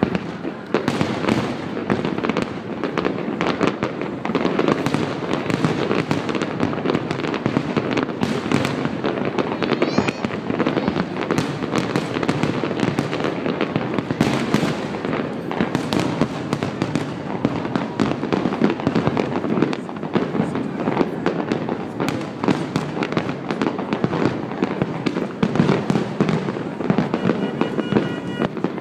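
Fireworks display: a dense, continuous barrage of bangs and crackling, with a whistle rising about nine seconds in.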